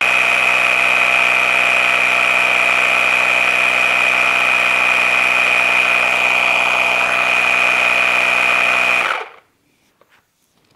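Cordless battery-powered ADNOOM portable air pump running with a steady high whine as it inflates a basketball through a ball-needle adapter. It cuts off abruptly about nine seconds in, shutting itself off on reaching its set pressure of 7 psi.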